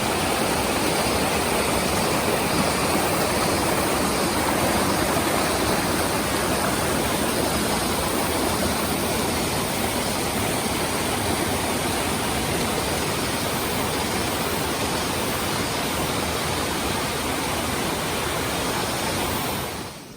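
Steady rush of water in a mountain stream, a dense even noise, cutting off suddenly near the end.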